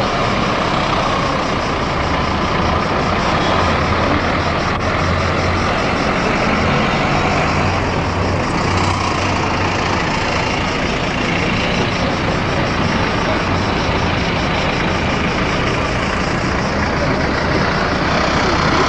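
Steady city traffic noise, with a low engine rumble running underneath.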